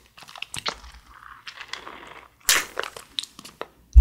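Thin plastic wrapper of a fruit-shaped jelly cup crinkling and crackling as it is handled and peeled open, in soft scattered crackles with one sharper, louder crackle about two and a half seconds in.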